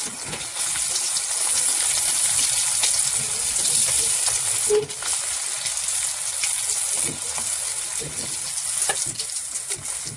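Chicken pieces in a crushed-potato-chip coating deep-frying in hot oil in a kadai, sizzling and crackling steadily, with more pieces slid into the oil partway through.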